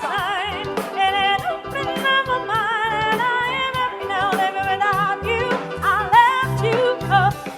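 Live band music: a wavering melodic vocal line without clear words over bass notes and regular drum hits.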